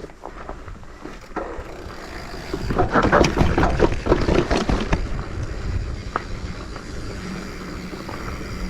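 Mountain bike rolling over a rough dirt trail: tyre crunch and rattling clicks, loudest from about three to five seconds in, over a steady low rumble.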